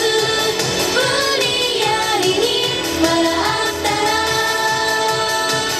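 Upbeat Japanese idol pop song: young women's voices singing into microphones over a backing track with a steady beat.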